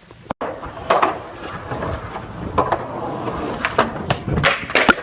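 A rough scraping, rolling noise with a quick run of sharp clacks and knocks, loudest in the second half; the sound cuts out completely for a moment about a third of a second in.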